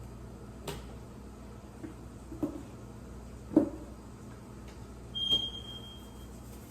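A few knocks from kitchen items being handled, the loudest about halfway through. Then a single high-pitched electronic beep held for about a second near the end.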